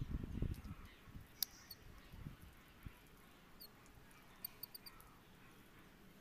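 Pruning shears snipping bonsai twigs: one sharp snip about a second and a half in and a couple of fainter clicks after. A few very short, high-pitched chirps come near the middle.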